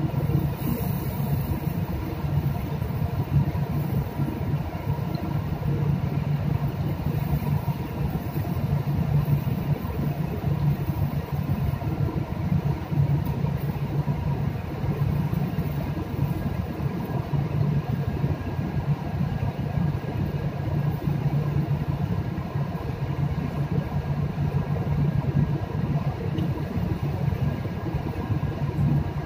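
Steady low mechanical drone of shipboard machinery, unbroken throughout.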